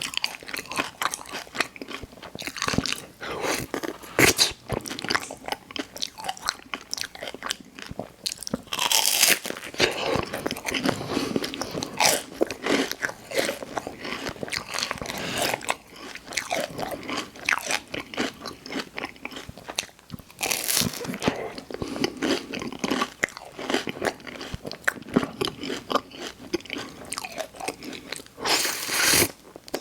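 Close-miked eating: a person biting into and chewing crunchy food, with a steady run of crackly chewing and several louder crunching bites.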